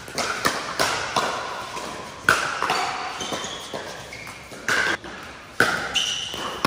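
Pickleball rally: paddles striking the hard plastic ball in a run of sharp pops, each with a short ring, at an uneven pace. Short high shoe squeaks on the court surface come in between.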